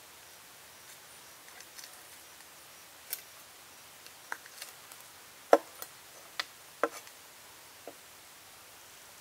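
Cleaver chopping a tuna on a wooden table: about eight sharp knocks at uneven intervals, starting about three seconds in, the loudest about halfway through.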